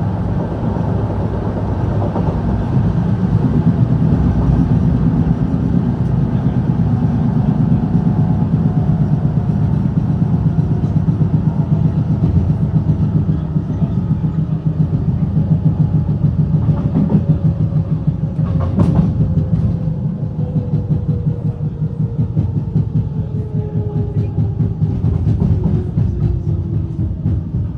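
Berlin S-Bahn class 485 electric train heard from aboard, running with heavy rattling. There is a sharp knock about two-thirds of the way through, and over the second half a whine falls steadily in pitch as the train slows.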